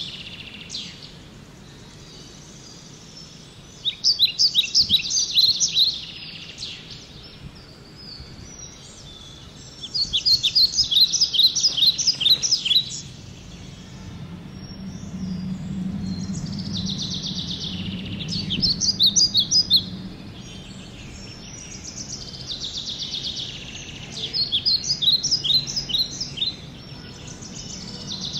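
A songbird singing, repeating a short phrase of quick high chirps about every six to seven seconds, over a faint low hum.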